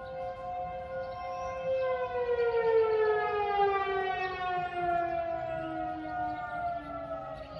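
Outdoor tornado warning sirens sounding: a steady wail, joined about two seconds in by a louder tone that slowly falls in pitch.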